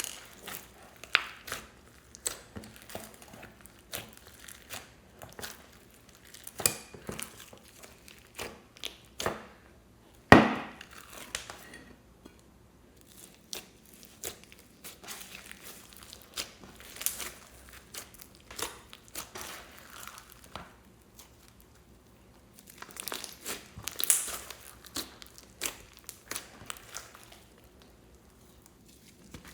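Slime being squeezed and stretched by hand: irregular sticky crackles and small pops, with one sharper knock about ten seconds in.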